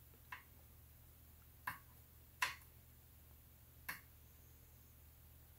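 Four faint, sharp clicks spread over about four seconds, the third the loudest: metal multimeter probe tips tapping onto and shifting between an amplifier's capacitor terminals while they are checked for leftover charge.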